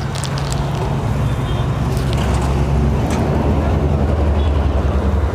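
Low engine rumble of a motor vehicle running close by in street traffic, growing a little louder about halfway through, with a few faint clicks.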